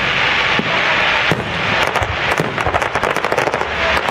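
Fireworks bursting, with a dense crackling hiss and a rapid run of sharp pops that thickens in the second half, like a crackling finale.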